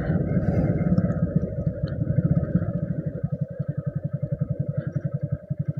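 Motorbike engine running at idle as an even run of low pulses, about ten a second, that slow slightly and grow quieter toward the end.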